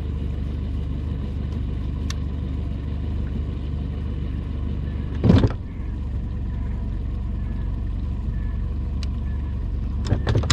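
Boat motor running with a steady low hum. There is a loud thump about five seconds in and two shorter knocks near the end.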